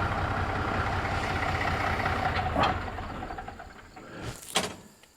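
Engine idling steadily, then switched off: it runs down and stops about four seconds in. A few sharp clunks follow near the end.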